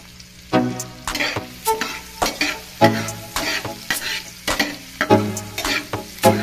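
Food being stirred with a spatula in a hot frying pan, sizzling, with a regular scrape or knock about twice a second.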